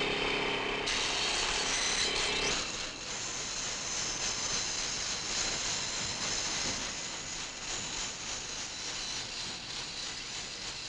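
Portable electric chain saw running on a log: a pitched motor whine for the first two seconds or so, then a steady, noisier machine sound.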